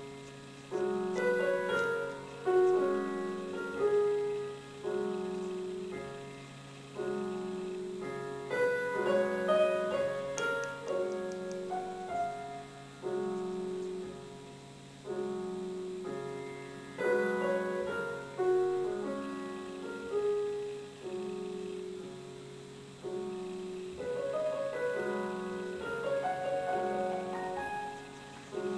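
Slow solo piano music: gentle chords and a melody line, each note struck and left to fade.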